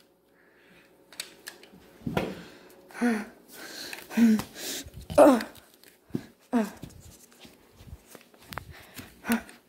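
A child's short strained vocal sounds, grunts, gasps and groans, come every second or so amid knocks and rustles from a close scuffle.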